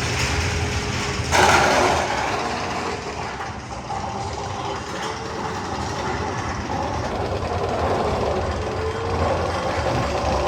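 Tunnel sound effect of the Magnum XL 200 roller coaster playing over loudspeakers: a steady noise with faint held tones, and a sudden louder burst about a second in.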